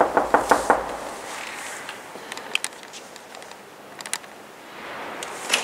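Knocking on a wooden office door: a quick run of about six or seven raps in the first second. A few faint clicks and taps follow.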